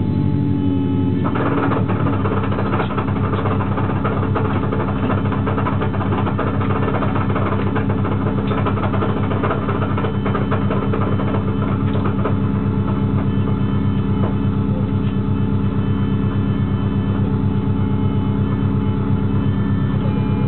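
Manual-transmission car engine idling with a loud, rapid rattling noise that sets in about a second in, once the clutch is released after a cold start. The noise comes from the transmission or the clutch; the owner cannot say which, and the car drives normally.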